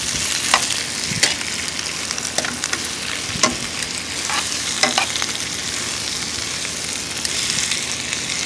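Chopped vegetables (onion, bell pepper, tomato) sizzling steadily in a hot nonstick skillet, with metal tongs clicking against the pan now and then as they are tossed.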